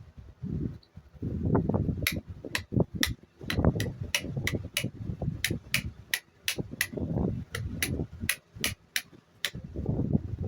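Handling noise from working on the fan parts: irregular knocks and rubbing, with a run of sharp, crisp clicks about two or three a second from about two seconds in until near the end.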